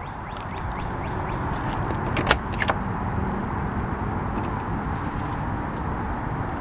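Two sharp metallic clicks a little over two seconds in, about half a second apart, from the latch of a 1967 Mercedes-Benz 250SL's driver's door as it is opened. A steady low rumble runs under them.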